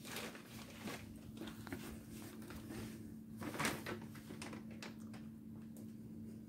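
Black plastic bag of harvested lemon balm rustling and crinkling as a cat shifts about inside it and a hand holds the bag open, in soft scattered crackles with a louder one about three and a half seconds in. A steady low hum runs underneath.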